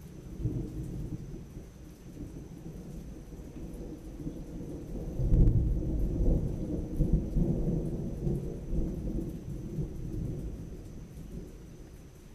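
Long peal of rolling thunder from a nearby storm. A low rumble builds about half a second in and swells to its loudest about five seconds in. It rolls on in several surges, then dies away near the end.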